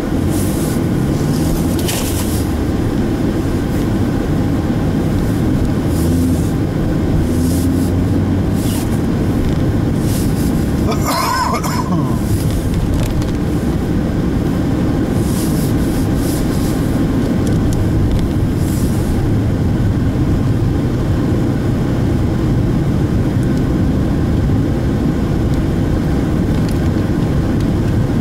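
Steady engine and tyre noise heard from inside a moving Opel Astra coupé cruising along a road.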